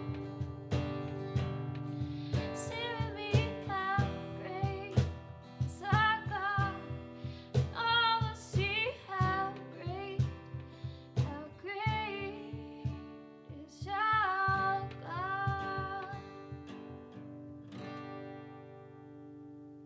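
Acoustic guitar strumming chords with a wavering melody line over it. The playing thins out near the end and the last chord rings out.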